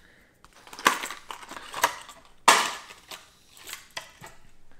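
Hard plastic blister packaging around a fishing crankbait being pried and cracked open by hand: a series of sharp crackling crunches, about one a second, the loudest about two and a half seconds in.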